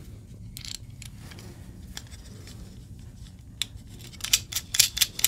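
3D-printed plastic parts of a pulley joint being handled and fitted together by hand: a few faint ticks, then a quick run of sharp plastic clicks and scrapes near the end.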